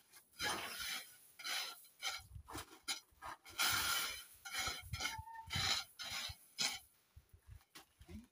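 Wooden stick scraping and raking loose gravel in short, irregular strokes, about two a second, as a walkway's gravel surface is levelled.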